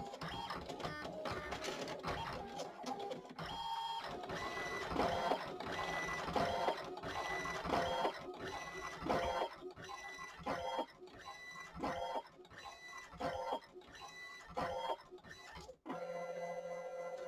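ALPS MD-5500 thermal-transfer printer printing a decal sheet, its mechanism running with a repeating whir roughly once a second. Near the end it settles into a steadier hum.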